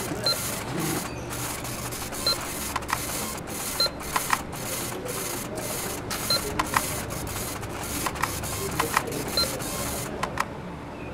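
Supermarket checkout sounds: a receipt printer chattering in short runs, with the short high beep of a barcode scanner five times at irregular intervals and some sharp clicks. The printing stops about ten seconds in.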